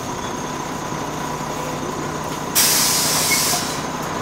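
Volvo B6BLE single-deck bus running steadily on the move, heard from inside the passenger saloon. About two and a half seconds in, a sudden loud hiss of compressed air from the bus's air system lasts about a second and dies away.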